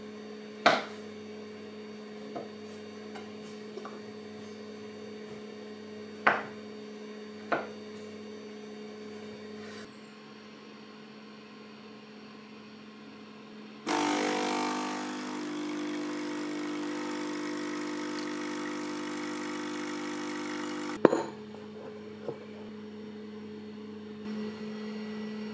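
Kitchen room tone with a steady electrical hum and a few sharp knocks. About halfway through, a kitchen appliance starts running loudly and steadily for about seven seconds, then stops with a sharp click.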